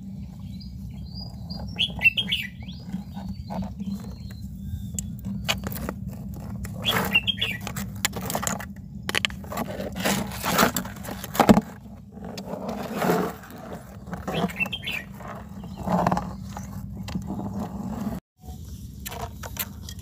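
Mud crab's legs and claws scraping and clicking against a wet plastic basin as it is handled, over a steady low hum, with birds chirping in the background a couple of seconds in.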